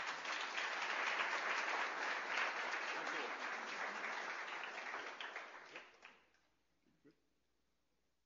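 Audience applauding, a dense patter of many hands clapping that tails off and stops after about six seconds.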